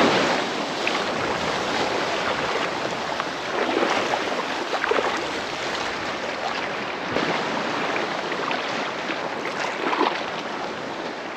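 Shallow seawater washing and lapping over sand at the shoreline, with a few small splashes.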